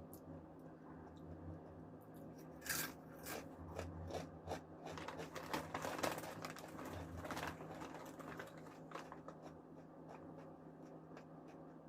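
Crisp, spicy balado-flavoured snack chips being bitten and chewed close to the microphone: a run of sharp crunches in the middle seconds, tapering to softer, sparser crunching near the end.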